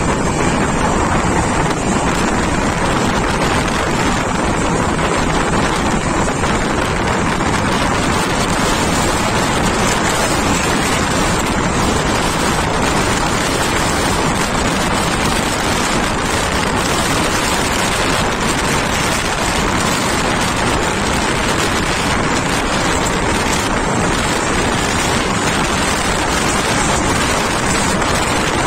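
Steady, loud rush of wind over the microphone mixed with the running noise of a fast express passenger train, heard from the side of the moving coach.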